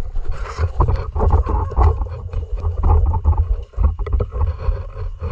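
Footsteps crunching on gravel and sand, over a heavy, uneven low rumble on the microphone.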